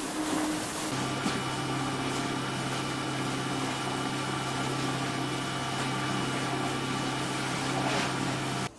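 Investment-casting shell-coating equipment running: a steady hiss with a low motor hum that sets in about a second in and cuts off just before the end.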